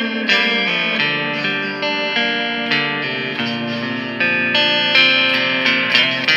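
Clean electric guitar played through a Wangs HD-15 amp's clean channel with a Caline Snake Bite reverb pedal: picked single notes and chords with a reverb tail. Quicker picking at the start and near the end, with longer ringing notes in between.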